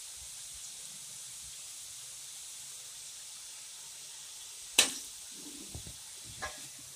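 Murukku deep-frying in hot oil in an aluminium kadai, sizzling with a steady hiss. About five seconds in, a sharp metal clink is the loudest sound, followed by a lighter one a second and a half later, as the perforated frying ladle knocks against the pan.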